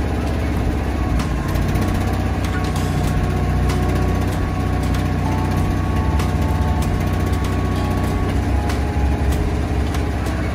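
Versalift bucket truck's engine running steadily while its hydraulic boom swings the basket, with a faint steady whine through most of it and scattered light clicks.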